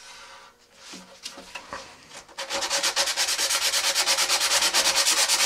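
Hand sanding on a fiberglass rocket body tube, scuffing the surface beside a fin slot to prep it for epoxy bonding. A few light rubs at first, then about two and a half seconds in quick, even back-and-forth strokes, about six a second.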